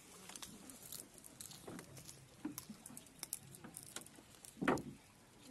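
Cast net being gathered and handled in a wooden boat: scattered light clicks and rustling from the mesh and its weights, with a single louder thump near the end.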